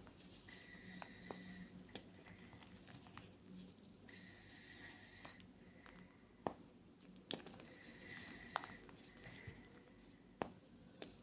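Block of white Reform gym chalk being crushed by hand: faint crumbling and rubbing, broken by a few sharp cracks as pieces snap.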